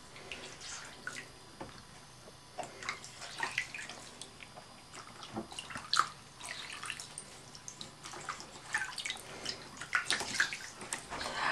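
Small splashes and drips of bath water in a plastic baby bath as a hand washes a baby, in scattered short sounds.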